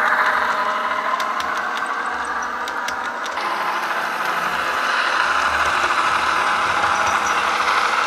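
Diesel engine sound played by a Soundtraxx Tsunami2 sound decoder through the small speaker of an HO scale brass OMI Illinois Central Green Diamond model train as it runs, steady throughout, with a few light clicks in the first three seconds.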